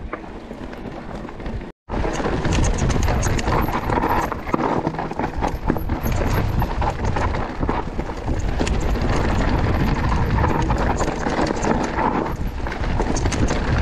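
Mountain bike descending a rocky trail: a dense, irregular clatter of tyres over loose stones and the bike rattling over bumps. A short drop to silence comes about two seconds in, after which the clatter is louder.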